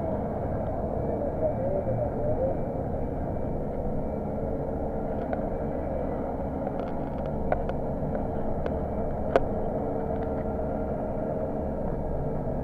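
Steady running noise of a bus moving through city traffic. Several short sharp clicks or rattles come in the second half, the loudest about nine seconds in.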